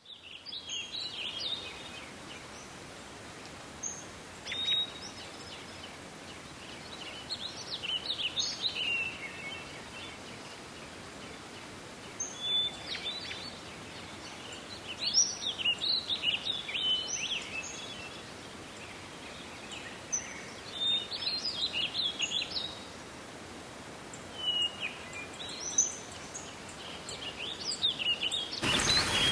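Songbird singing short, quick, high phrases of chirps and trills, one about every four seconds, over a steady faint hiss. A steady rushing noise starts just before the end.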